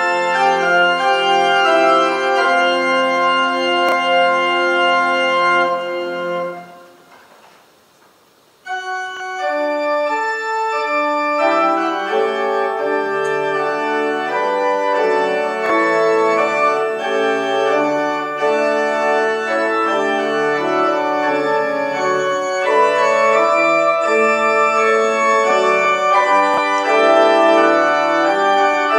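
Church organ playing a postlude. A held chord is released about six seconds in and dies away over about two seconds; then the organ starts again with a few notes and builds into full chords.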